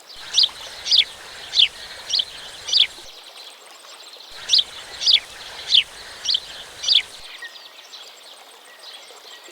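A songbird singing two phrases of five sharp, falling notes, about one note every half second, over a steady background hiss.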